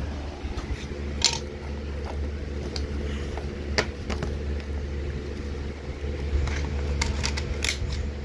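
A few sharp clicks and taps from handling a DVD disc and its plastic case, over a steady low hum, with a cluster of clicks near the end.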